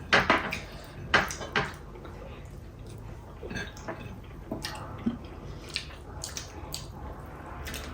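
Eating sounds: a person chewing chicken biryani, with wet mouth noises and scattered light clicks.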